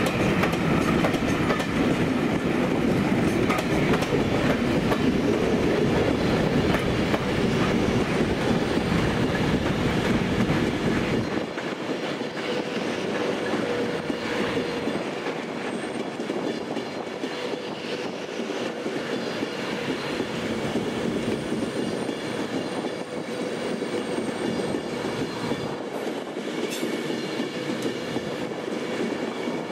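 A rake of railtour passenger coaches rolling past and away on the track beside the platform, wheels running over the rails. The sound is loud for about the first eleven seconds, then the deep rumble falls away and a fainter, steady running sound continues as the train draws off.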